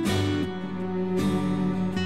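Background music: an acoustic guitar strumming chords, with a new chord struck at the start and another about a second in.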